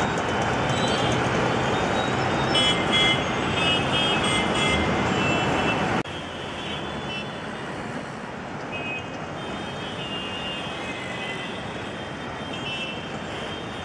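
Road traffic ambience: a steady hum of street traffic with a few short, high horn beeps a couple of seconds in. It drops suddenly to a quieter level about six seconds in and carries on.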